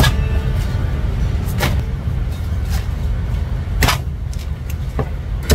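Cleaver chopping through roast goose onto a thick wooden chopping block: sharp knocks at uneven intervals, a pair about one and a half seconds in, a loud one about four seconds in and another near the end, over a steady low rumble.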